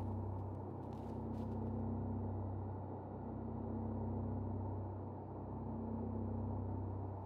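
Low, steady ambient drone from the film's sound design, swelling and dipping slowly about every two seconds. A couple of faint crackles come about a second in.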